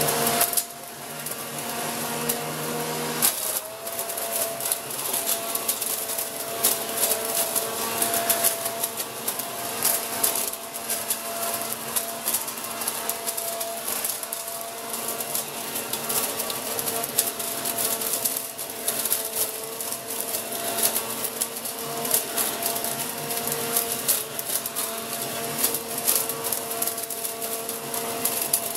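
Corded electric leaf vacuum-mulcher running steadily with a constant motor-and-fan whine. A dense crackle of leaves is drawn in and shredded by the impeller.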